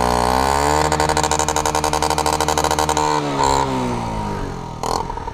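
A 50cc scooter engine is revved up and held at high revs for about three seconds, then drops back toward idle.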